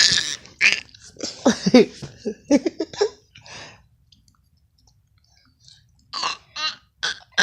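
A baby doing fake coughs: a run of short, throaty cough sounds, a pause of about two seconds, then a few more coughs and vocal bursts near the end.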